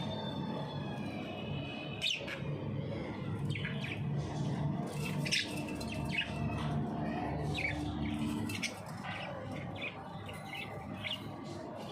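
Budgerigars chirping and warbling: short, sharp, high chirps at irregular intervals, coming faster near the end, over a steady low hum.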